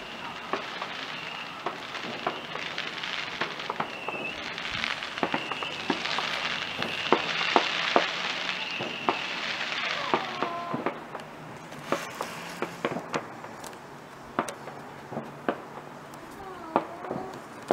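Distant fireworks going off: many sharp bangs and pops scattered throughout, with a crackling hiss that builds to its loudest in the middle and then dies back.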